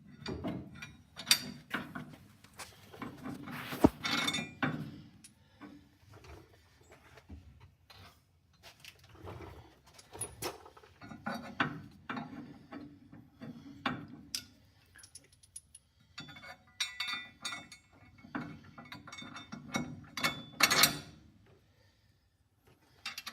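Metal hand tools and brake parts clinking and clanking irregularly as they are handled, with a sharp metallic knock about four seconds in.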